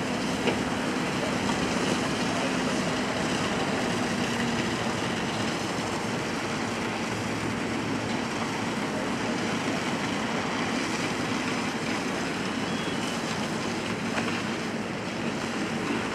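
Fire hose streams spraying water onto a burning heap of garbage, a steady rushing hiss as the water hits the hot debris and turns to steam, with a steady low hum from an engine running underneath.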